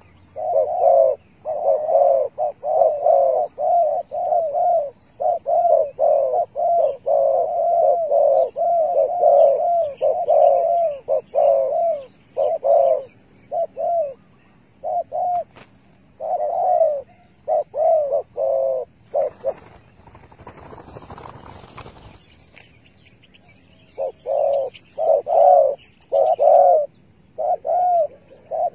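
Spotted dove cooing: runs of short, repeated coo notes. There is a break of a few seconds about two-thirds of the way through, filled by a brief faint rustling noise, and then the cooing resumes.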